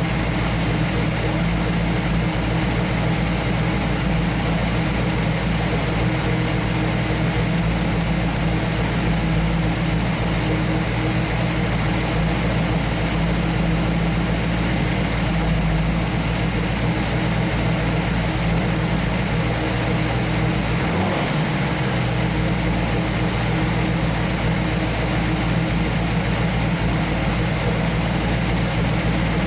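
1968 Pontiac Firebird's V8 (a 428 stroked to 462 with a 455 HO top end) idling steadily.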